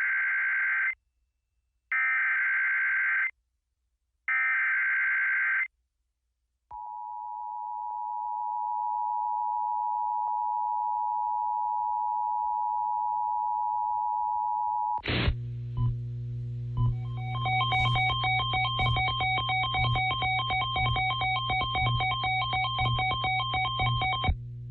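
Emergency Alert System signal: three short bursts of warbling SAME header data tones, then the steady dual-tone EAS attention signal for about eight seconds. After that, a loud electronic buzz of several steady tones over a low hum, with fast irregular clicking, cuts in at once and stops just before the end.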